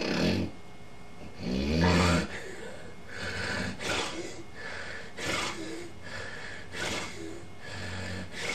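A person snoring: a short snore at the start, a long, low snore about two seconds in, then a run of shorter snorts and breaths every half second or so.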